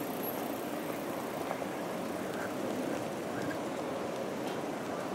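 Steady outdoor city ambience: a low wash of distant road traffic, with a few faint light ticks.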